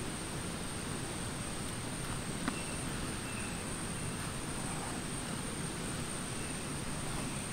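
Rainforest ambience: a steady low rumble under a continuous high insect drone, with a few faint chirps and a single click about two and a half seconds in.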